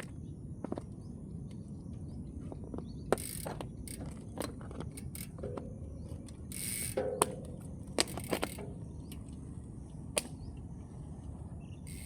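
Bicycle ticking and rattling while being ridden: irregular sharp clicks from the drivetrain and frame over a steady low rumble of wind and road noise, with a few short hissing bursts.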